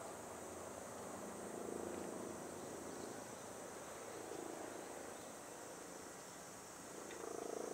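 A steady, high-pitched drone of insects in the summer vegetation.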